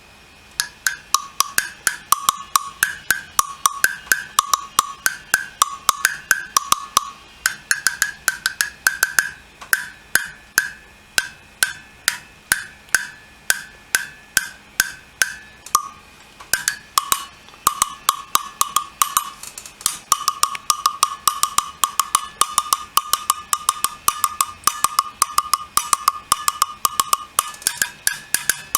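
LP Jam Blocks, a high and a low one, struck with a stick in fast rhythmic patterns: short, dry knocks switching between two pitches. In the second half the lower block is played most of the time.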